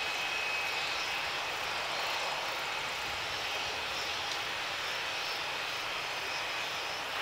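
Boeing 737 MAX 8's CFM LEAP-1B turbofans running at low power as the airliner rolls out on the runway after landing: a steady, even jet hiss with a faint thin whine in the first second.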